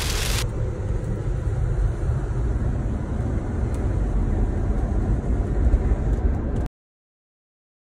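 Inside a moving car: rain hissing on the glass for the first half second, then a steady low rumble of road and wind noise that cuts off suddenly near the end.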